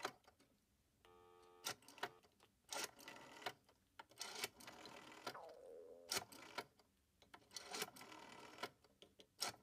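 Rotary telephone dial being wound and released digit after digit, its spring return whirring and clicking out each number's pulses. A brief steady dial tone comes from the off-hook handset about a second in.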